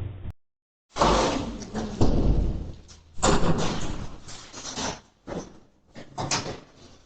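A door banging and rattling: several loud thuds in the first half, then fainter, shorter knocks.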